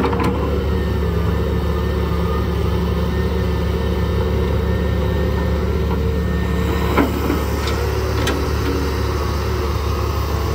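Heavy diesel engine of an excavator running steadily, with a sharp knock at the start and another about seven seconds in.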